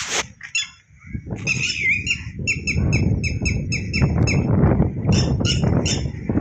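A bird calling: a rapid, even series of short chirps, about four or five a second, for a couple of seconds, then more scattered chirps, over a steady low rumble.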